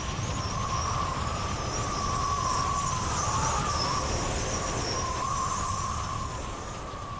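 A loud, wavering high-pitched wail, several pitches sliding up and down and overlapping, over a steady low rumble; it swells toward the middle and eases off near the end.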